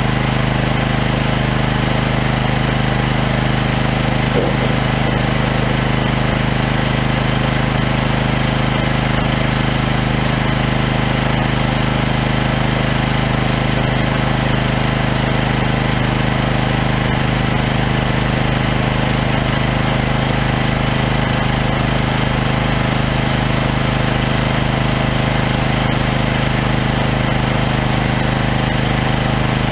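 Engine-driven firewood processor machinery running steadily: a constant engine drone, with no sawing or splitting breaking into it.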